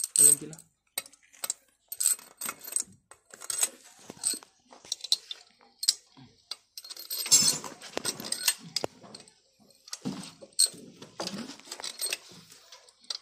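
Irregular sharp metallic clinks and taps of steel cylinder head bolts and hand tools being handled and set into an engine's cylinder head, some with a brief ring.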